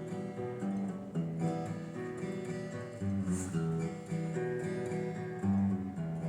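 Acoustic guitar being played: picked notes moving over low bass notes, with a brighter strum about three and a half seconds in.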